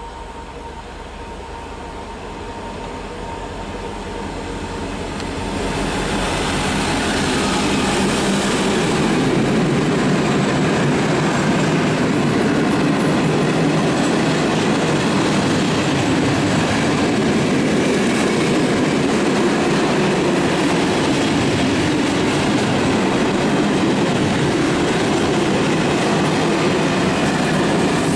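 M62 diesel locomotive approaching and getting louder over the first six seconds. It then hauls a long freight train of flat wagons loaded with steel past, a steady, unbroken rolling noise of wheels on rail.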